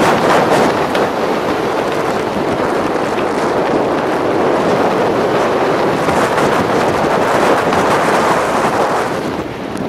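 Loud rushing wind buffeting the camera microphone during a tandem parachute descent under canopy, easing slightly near the end.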